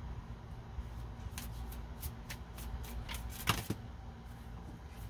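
Tarot cards being shuffled and handled: a string of light card snaps, with a short, louder run of flicking about three and a half seconds in, over a steady low hum.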